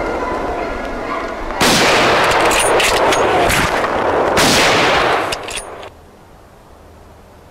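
Rifle shots: two loud reports, about three seconds apart, each followed by a long rolling echo. The sound cuts off about six seconds in, leaving a low hiss.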